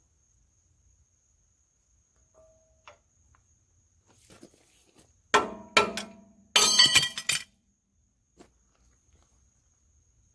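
Two sharp metal knocks about five seconds in, then about a second of metal-on-metal clattering with a ringing edge, as the steel gib key puller clamp is handled and taken off the engine's flywheel hub.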